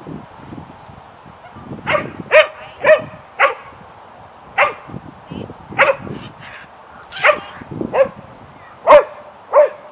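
A dog barking, about ten short sharp barks coming in an irregular run from about two seconds in.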